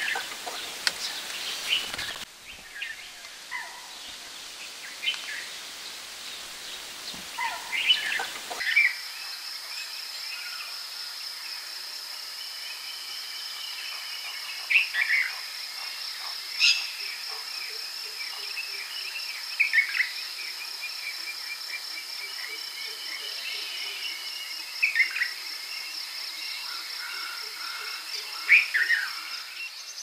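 Natural ambience of scattered bird calls and chirps; about eight seconds in, a steady high insect trill sets in and runs on beneath the calls.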